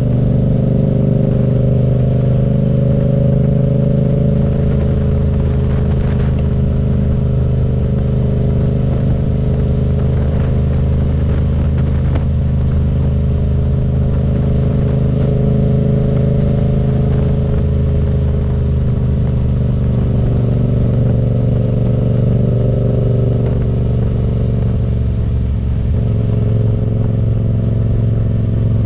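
Yamaha FZ-07 motorcycle's parallel-twin engine running at a steady pitch under way, easing off briefly about three-quarters of the way through and then picking up again.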